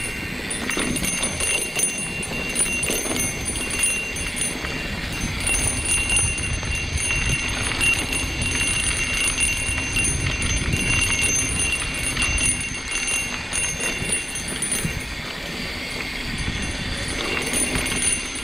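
Mountain bike rolling over a dirt trail: the bike rattles and knocks over bumps, with wind rumble on the microphone. A steady high ringing buzz sounds through most of it, of the kind a rear freehub makes while coasting.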